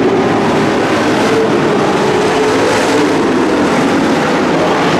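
Race truck engines running hard on a dirt oval, several engine notes wavering together over continuous loud noise, with a truck passing close.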